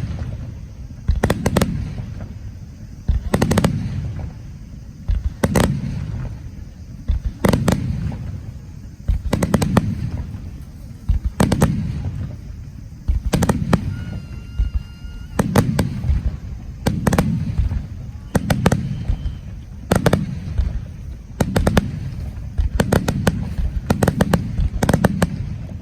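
Aerial fireworks shells bursting in steady succession, a sharp bang about every one and a half to two seconds, each followed by a low rolling boom as it echoes away. A brief high whistle sounds about fourteen seconds in.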